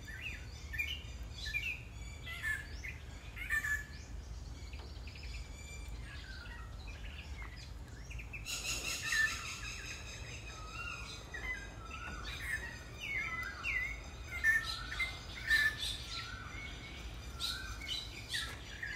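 Birds chirping and singing in many short calls over a low steady hum, with a faint hiss joining about halfway through.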